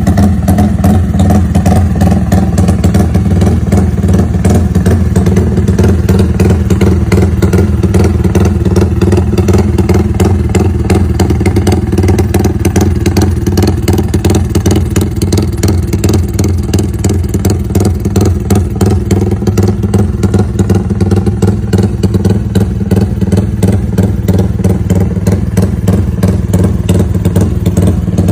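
Yamaha Y15ZR (MX King) 150 cc single-cylinder four-stroke idling steadily through an aftermarket exhaust, tuned for a lumpy 'rumble idle'.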